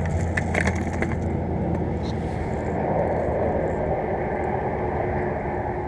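Light clicks and rattles of fishing lures and tackle being handled in a tackle bag during the first second or so, over a steady low rumbling noise.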